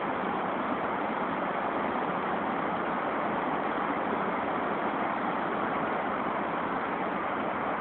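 Steady urban background noise, even and unbroken, with no distinct events in it.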